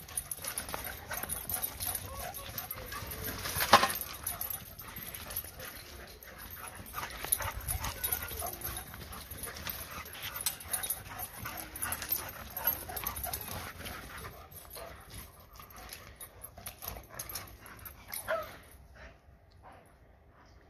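Two dogs playing and chasing each other, with scuffling feet and a short high call from one of them near the end; a single sharp knock about four seconds in is the loudest sound.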